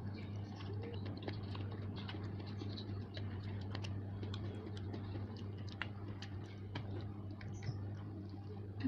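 Close-miked eating sounds of someone chewing noodles: many small, irregular wet mouth clicks over a steady low hum.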